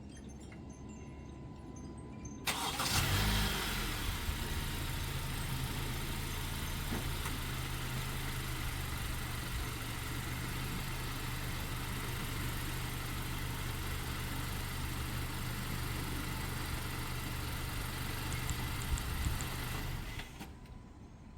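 Honda CR-V's 2.4-litre four-cylinder engine cranking and catching about two seconds in, then idling steadily until near the end.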